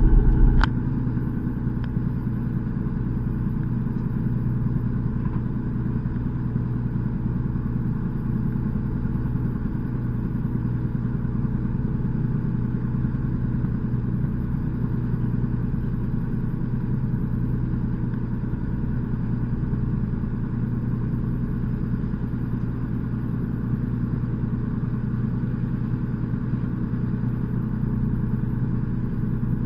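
Fishing boat's engine running with a steady low hum. The hum is louder for the first half-second, then a click and it settles a little lower.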